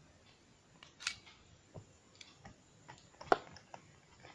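Scattered clicks and taps of the small parts of a precision screwdriver set being handled and fitted together, with a sharp click about a second in and the loudest a little after three seconds.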